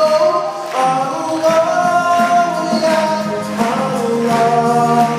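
Live nasheed performance: a male voice holds long sung notes over backing music with percussion.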